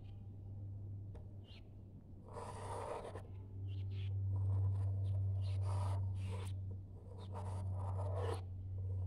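Pencil lead of a drawing compass scratching across drawing paper as a circle is swung, in several strokes. A steady low hum runs underneath.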